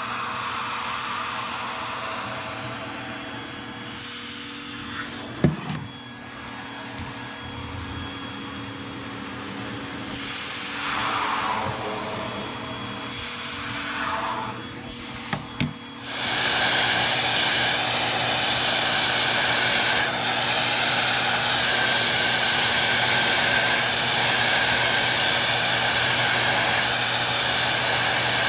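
Vacuum cleaner running with a steady motor hum while its nozzle is worked along a curtain rail, the suction sound shifting and a few sharp knocks of the nozzle against the rail. About sixteen seconds in it turns much louder, a steady rushing hiss.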